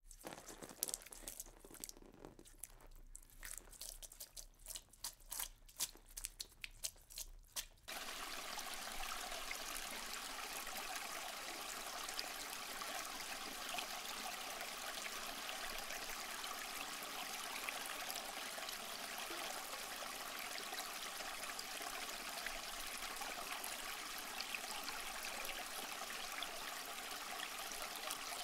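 Faint scattered crackles for the first several seconds, then from about eight seconds in a steady trickling hiss of aquarium water circulating.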